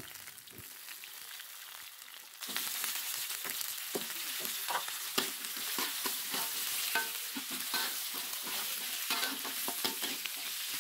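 Sliced carrots, onion, chili and garlic sizzling in hot oil in a wok while a spatula stirs them, with many short scrapes and clicks of the spatula against the pan. The sizzle is softer at first and grows louder about two and a half seconds in.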